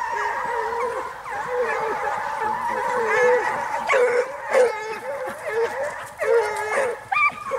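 A pack of French scent hounds baying in chorus as they run a hare's line, many voices overlapping. Louder single calls from nearby hounds come about four seconds in, again a little later, and near the end.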